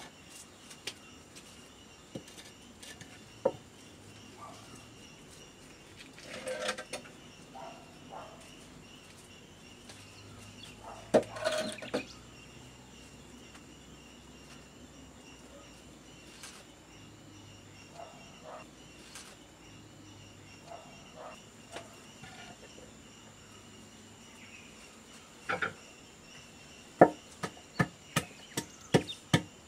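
Insects chirring steadily in the background, with a few faint knocks and rustles. Near the end a wooden pestle starts pounding in a mortar, sharp strikes about two a second.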